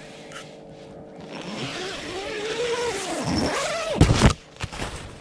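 Strong wind gusting and howling, its pitch wavering up and down as the gust builds. About four seconds in comes a loud, brief buffeting blast.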